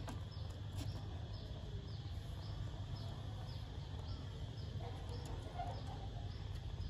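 A short, high, falling chirp repeats about twice a second over a steady low background rumble.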